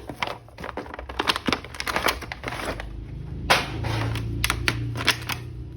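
Plastic toy packaging being handled and opened: a dense run of clicks, cracks and crinkles, with a sharper knock about three and a half seconds in and a low hum from then on.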